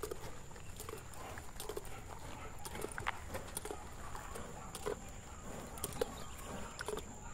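Horse's hooves striking a dirt track at a quick, short-stepping gait, about two soft knocks a second.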